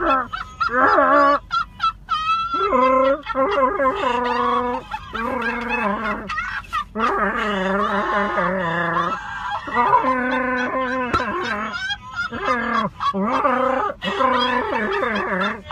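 High-pitched, honking laughter from someone wearing a Chewbacca mask, in repeated bouts of about one to two seconds with short breaks between.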